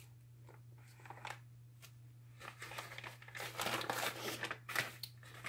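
Small plastic zip-lock baggies crinkling as they are handled: a few faint clicks at first, then crinkling from about halfway through, loudest near the end. A steady low hum runs underneath.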